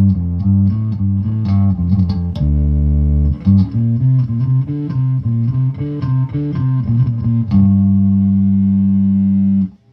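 Electric bass played through a Peavey 400 series bass amp in series mode, the harmonics side with its fuzz blended in after the normal channel: a run of picked notes, then one note held for about two seconds that cuts off sharply near the end.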